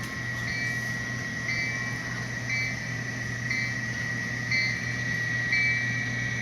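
Sound decoder of a Walthers HO-scale EMD SD60M model locomotive playing a steady diesel idle hum with the bell ringing about once a second, heard through the model's small speaker along with a steady high whine.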